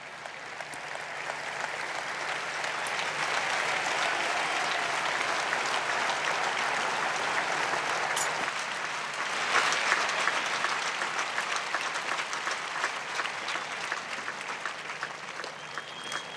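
Large crowd applauding. It swells over the first few seconds, is loudest about two-thirds of the way through, then thins into separate claps near the end.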